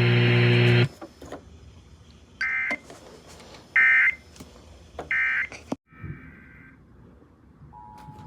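Emergency Alert System signalling: three short bursts of warbling digital data tones, about a second and a half apart, then a fainter fourth. Near the end the steady two-tone EAS attention signal begins. A steady buzz cuts off about a second in.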